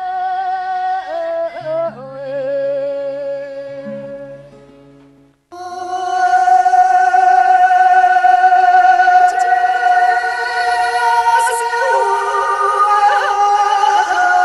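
Music: a wavering solo melody fades out, then about five and a half seconds in a louder, fuller passage of long held notes with singing begins.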